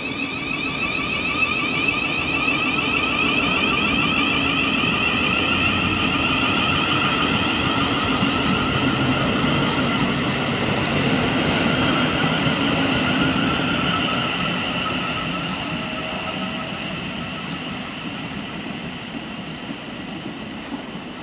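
Thameslink electric multiple unit pulling away from the platform. Its traction motors' whine rises in pitch as it gathers speed, over the rumble of wheels on rail, then fades as the train draws away.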